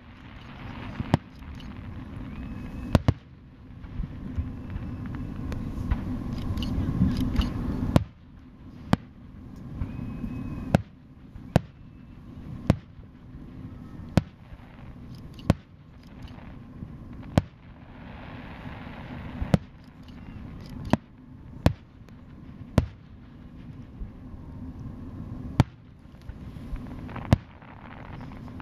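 Aerial fireworks shells bursting one after another, a sharp boom every one to two seconds, with a low rumble between the booms.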